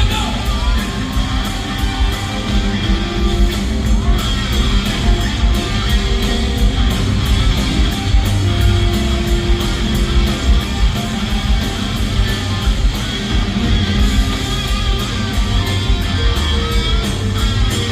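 Live rock band playing loudly, with electric guitar and drums to the fore.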